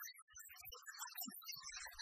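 Quiet background music, short scattered notes over occasional low thuds.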